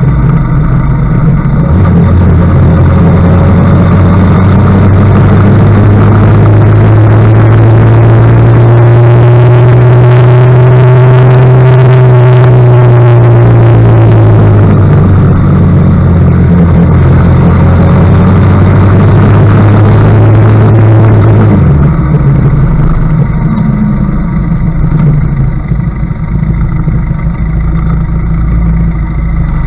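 Benelli TRK 502's parallel-twin engine running on the move, with heavy wind noise on the bike-mounted camera's microphone. The engine note rises and eases back down around the middle, and the wind noise drops off about three quarters of the way through.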